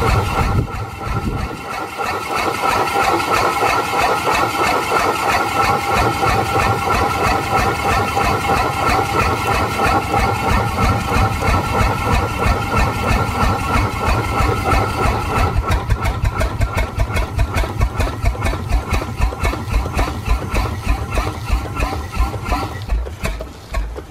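1890s Atlas automatic stationary steam engine running, with a steady, rapid, regular rhythm of exhaust beats.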